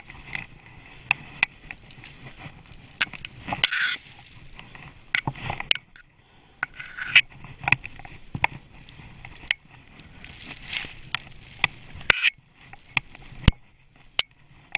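Skis running through deep powder snow: bursts of hissing snow spray on the turns, with many sharp clicks and knocks.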